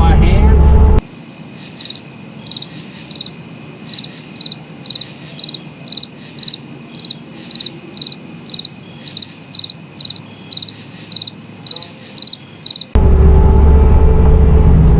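A loud, low engine sound cuts off abruptly about a second in. A steady series of high, evenly spaced chirps follows, about two a second, before the loud engine sound returns just as suddenly near the end.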